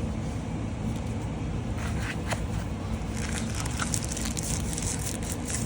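Plastic packaging crinkling and clicking in the hands, a few scattered crackles and taps, over a steady low hum.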